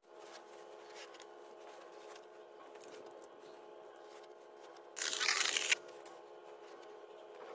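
Steel shovel scraping and digging into wet clay and gravel, with short scrapes throughout and one loud scrape lasting under a second about five seconds in. A steady hum runs underneath.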